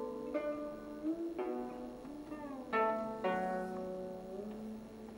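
Slow instrumental background music: single plucked string notes a second or so apart, ringing on, one of them sliding in pitch.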